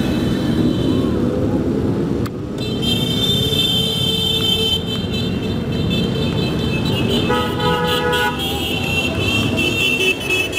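Many motorcycle engines running together in slow procession, with horns honking: a high horn tone sounds from a few seconds in to the end, and another horn blares for about a second near the middle.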